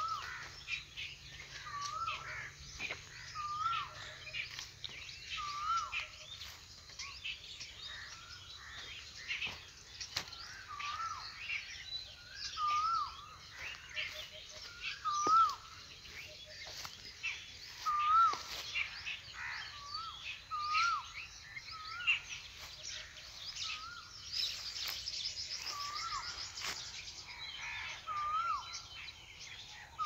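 Morning bird chorus: one bird repeats a short rising whistled note about every two seconds, while other birds chirp over it. A fast buzzy trill runs for a couple of seconds near the end.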